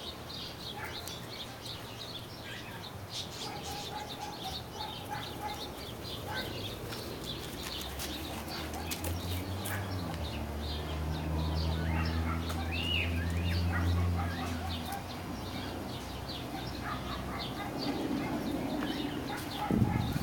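Birds chirping steadily in the background. A low steady drone comes in about halfway through and fades out a few seconds later, and there is a sharp thump right at the end.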